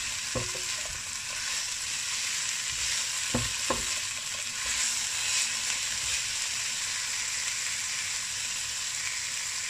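Sliced lotus root and peppers stir-frying in a nonstick wok: a steady sizzle, with a silicone spatula knocking against the pan once about half a second in and twice just after three seconds.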